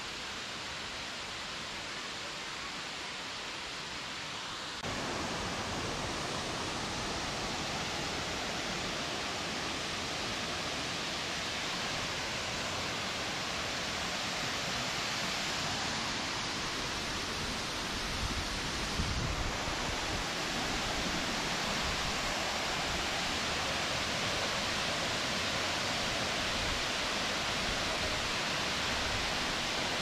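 Steady rush of water from a waterfall, stepping up in loudness about five seconds in, with a brief low rumble a little past the middle.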